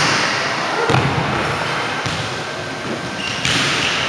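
Volleyballs being hit and bouncing on a hardwood gym floor: a few sharp thumps over the steady noise of a large, echoing gym.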